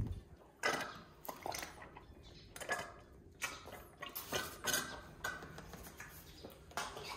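Baby African elephant sucking and gulping milk formula from a large plastic bottle, with the bottle crackling: a run of short, irregular slurping and crinkling sounds, about two a second.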